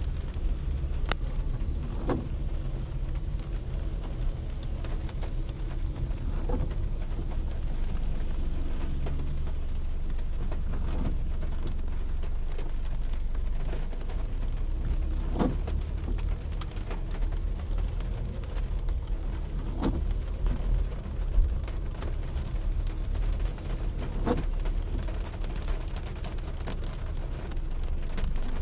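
Storm wind buffeting the microphone as a heavy low rumble, with rain. A short knock repeats about every four and a half seconds, and one sharper crack comes about two-thirds of the way through.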